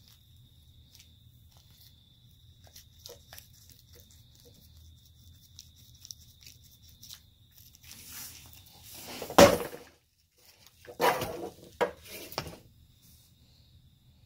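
Handling noise from a gloved hand working the parts: small clicks and rubbing, then a rustle ending in one solid thunk, and a second burst of knocks and rustling a little later. A faint steady hum runs underneath.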